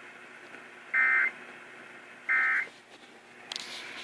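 Two short bursts of EAS SAME digital data tones, the end-of-message code that closes an Emergency Alert System broadcast, each a fraction of a second long and a little over a second apart, over radio hiss. A click and louder hiss follow near the end.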